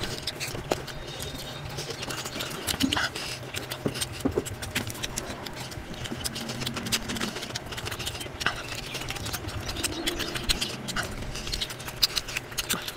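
Eating sounds played at three times speed: rapid wet chewing, lip smacking and fingers squishing through oily mutton curry and rice, as a dense run of short clicks and smacks over a steady low hum.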